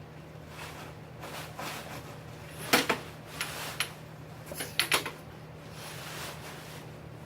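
A few sharp clicks and knocks, in two short clusters about three and five seconds in, from tent gear being handled during pitching, over a steady low hum.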